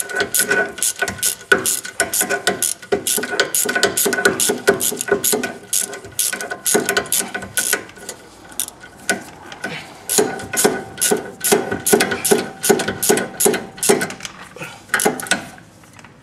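Small hand socket ratchet clicking in quick runs as a rear brake caliper bolt is run in tight. The clicking eases off about halfway, picks up again around ten seconds in, and stops shortly before the end.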